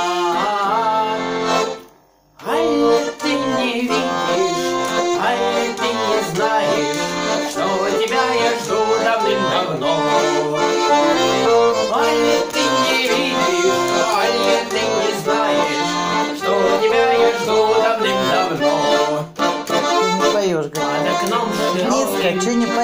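Russian garmon (button accordion) playing the instrumental break between sung verses, a quick melody over chords. The playing stops for about half a second about two seconds in, then carries on.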